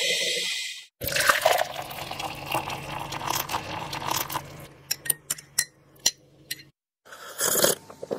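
Liquid being poured into a mug, followed by a run of short clinks and taps and a brief louder burst near the end, like a coffee being made.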